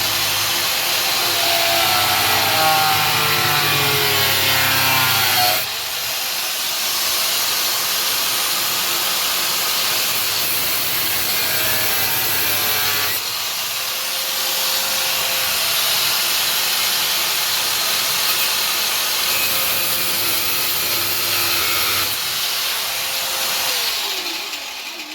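A power tool cutting a notch: a continuous rasping saw noise with the motor's pitch wavering as it bites, changing tone about six seconds in and again at about thirteen and twenty-two seconds.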